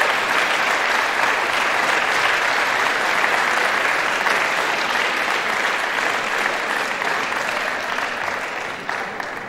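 A crowd applauding steadily, thinning out and fading near the end.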